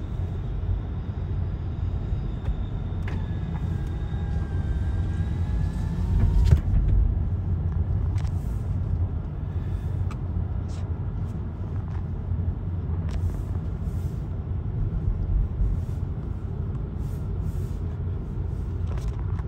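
Sounder commuter train approaching slowly with a steady low rumble. A faint high squeal sounds for a few seconds about three seconds in, with a few light clicks scattered through.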